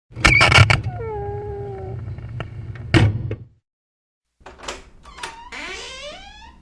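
Creaking door hinges on two doors. A clatter of knocks leads into a squealing hinge creak that drifts slightly down in pitch, and a knock comes about three seconds in. After a brief silence come a couple of clicks and a second, rising, wavering hinge squeal.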